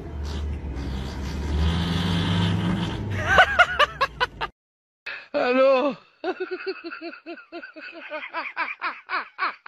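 A car engine running, heard from inside the cabin, with a short burst of laughter about three seconds in. After a cut and a brief gap, a person laughs in rapid, even bursts, about four a second.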